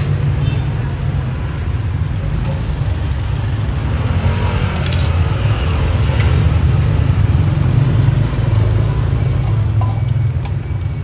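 Steady low rumble of street traffic with motorbikes, with a few light clicks about five seconds in.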